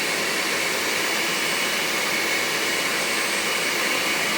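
Blender running steadily, mixing milk with tamarind flavouring.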